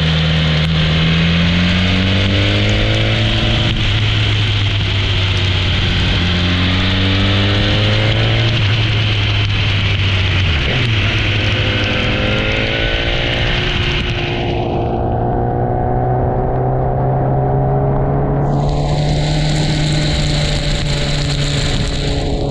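Motorcycle engine revving up through three pulls, its pitch dropping between them, then holding steady. Over it is a loud rushing hiss of wind and spray from the wet road, which fades about two-thirds of the way through and returns near the end.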